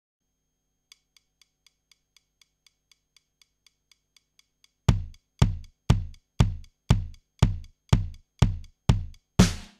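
Electronic drum machine pattern starting up: faint high ticks at about four a second, then about four seconds in a loud kick drum joins on every beat, two a second. Near the end a noisy clap-like hit lands on a beat.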